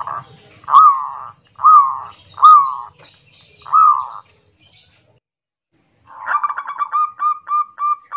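Zebra dove (local perkutut) singing in the loud 'kerot nguwor' style: four separate rounded coos in the first four seconds, then after a pause a fast run of short stuttering coo notes, about five a second.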